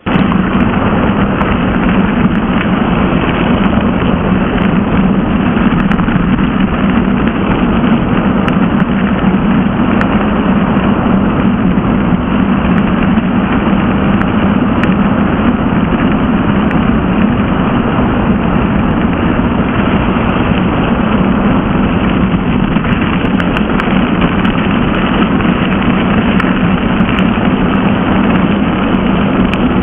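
Steady rushing wind noise on the camera microphone, mixed with the roll of mountain bike tyres on a forest road during a fast downhill descent.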